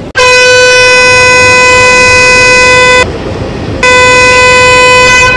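Indian Railways locomotive horn sounding two blasts on one steady pitch, very loud: a long blast of about three seconds, then after a short gap a shorter one of about a second and a half.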